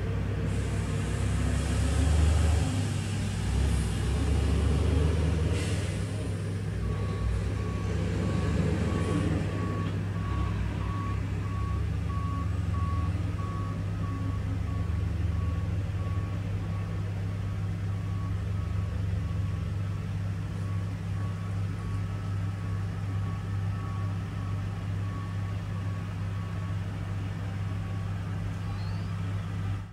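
Dump truck's diesel engine running with a heavy low rumble while its reversing alarm beeps steadily at one pitch, starting several seconds in and stopping near the end: the truck is backing up.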